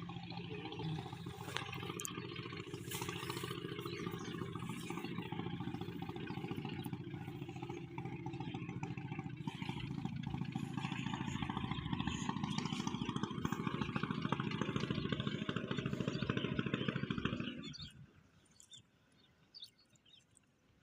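A small engine running steadily, then cutting off suddenly near the end, leaving only faint clicks.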